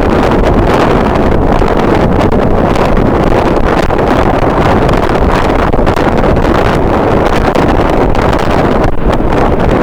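Strong wind blowing across the microphone: a loud, steady, rumbling rush with no clear pitch.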